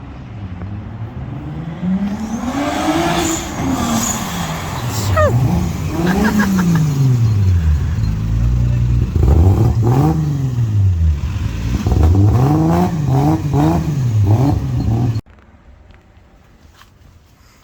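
Car engine revving, its pitch rising and falling repeatedly and the revs coming quicker near the end, then cutting off suddenly about fifteen seconds in.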